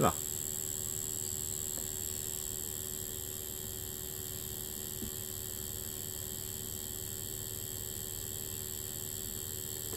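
Steady electrical hum with a thin high whine from a high-voltage spark-gap rig while current runs through magnetite sand, glowing in a red track rather than arcing through the air. There is no crackle of an open arc.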